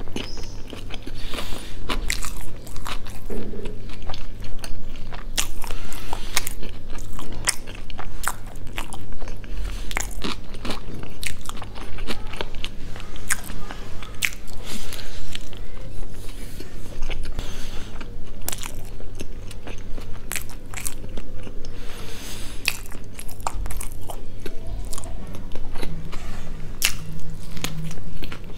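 Close-miked biting and chewing of a chicken burger: soft bun and fried chicken crunching, with many irregular wet mouth clicks.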